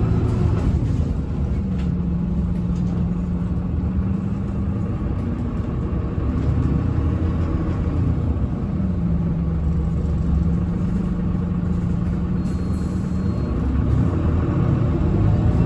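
Irisbus Agora Line city bus with Voith automatic gearbox, heard from inside the cabin: engine and drivetrain running as the bus drives, a steady rumble with a low hum that comes in twice for a few seconds each.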